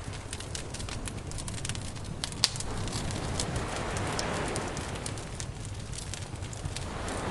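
Campfire crackling with scattered small pops and one sharp, louder pop about two and a half seconds in, over a low rushing wash of surf that swells and fades.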